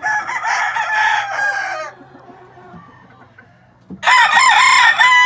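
White Lacy Roundhead gamecock roosters crowing twice: one long crow from the start lasting about two seconds, then another beginning about four seconds in.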